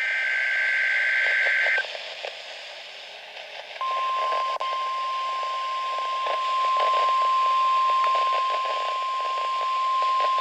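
NOAA Weather Radio test broadcast received through static hiss. A warbling SAME digital header burst ends about two seconds in. After a brief stretch of hiss, the steady 1050 Hz weather radio alert tone starts about four seconds in and holds, announcing the weekly test of the tone and SAME alert systems.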